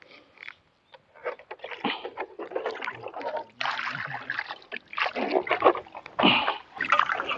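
Water poured from a pot into a steel bowl of raw mutton pieces, with hands sloshing and rubbing the meat to wash it: irregular splashes starting about a second in.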